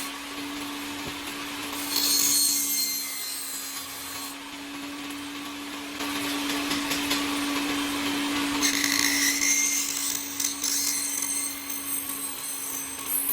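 A small power tool's motor running with a steady hum while it cuts or grinds wood. Twice it bites in with a louder, high-pitched whining rasp: once about two seconds in, and again near nine seconds.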